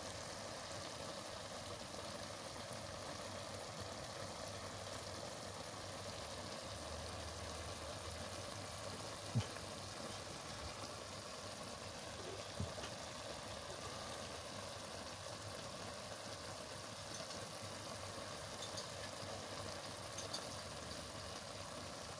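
Okra cooking in a pot on the stove: a steady low sizzle and hiss under a faint hum, with two faint clicks about nine and twelve seconds in.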